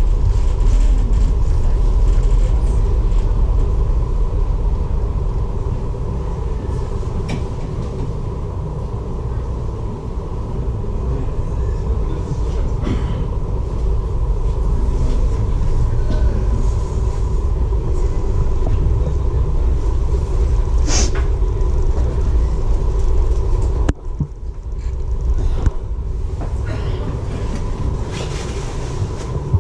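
Steady low rumble of a ferry's engines heard aboard, with a constant hum over it. A short high squeal about two-thirds of the way through, and the rumble drops away abruptly for a moment a few seconds later.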